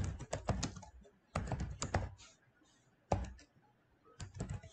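Typing on a computer keyboard: quick runs of keystrokes in about four short bursts with brief pauses between.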